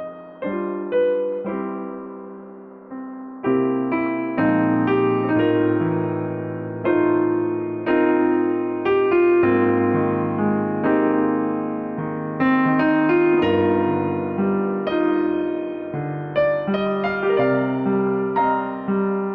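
Background piano music: a slow, gentle piece of struck notes and chords, sparse at first and fuller from about four seconds in.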